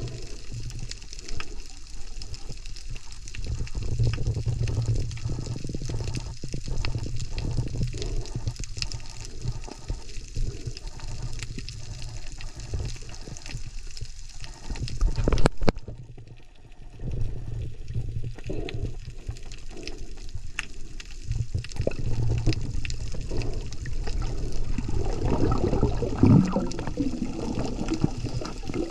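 Underwater sound through a camera microphone in its housing: a muffled, steady low rumble of moving water with many faint scattered clicks. There is one loud knock about halfway through.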